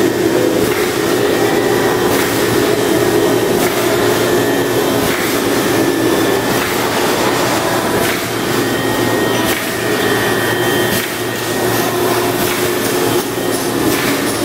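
Plastic bag-making machine with wicketer running: a steady motor and blower hum with occasional short clicks from the machine's mechanism.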